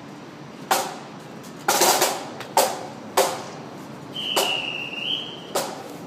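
Pipe band drums, snare and bass drum, struck in single sharp strokes in a slow, uneven beat, with no bagpipes sounding. A high steady tone sounds for about a second about four seconds in.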